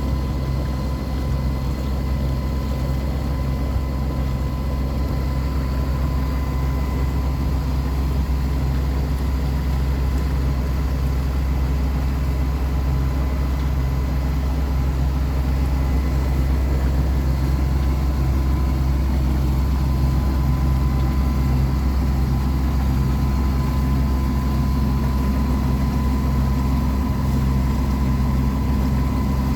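A sailboat's engine running steadily at a constant speed, a deep, even drone.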